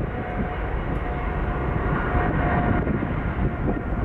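Etihad Cargo Boeing 777F's twin GE90 turbofans running at takeoff thrust on the takeoff roll: a loud, steady jet noise with a faint steady whine on top.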